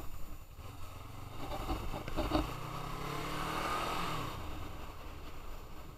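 Motorcycle engine pulling away, rising in pitch as it accelerates and then easing off about four seconds in, with wind rushing over the onboard camera's microphone.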